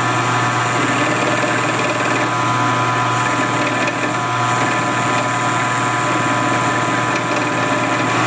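Milling machine running steadily, a steady hum with several held tones, as its custom-made cutter plunges into a metal mold block. The cutter is not cutting easily, which the machinist thinks may need more relief ground behind its cutting edge.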